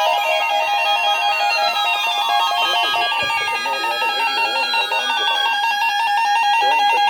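Several weather alert radios sounding their alarms at once for the NOAA Weather Radio weekly test: steady and rapidly pulsing beeping tones, overlaid with siren-like tones sweeping slowly up and down in pitch.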